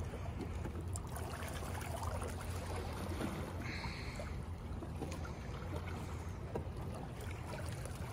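Wind buffeting the microphone in a steady low rumble, over small lake waves lapping against the rocks, with a few light scuffs of shoes on stone and a brief high-pitched note about four seconds in.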